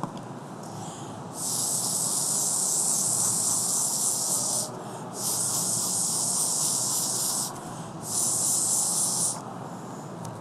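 Breath blown through a Bark Art blow pen, spraying marker ink onto a dog's hair: three blasts of high hiss, the first about three seconds long, the second about two, the last about one.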